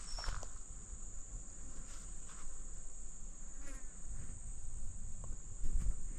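Insects shrilling in a steady, unbroken high-pitched chorus, over a faint low rumble.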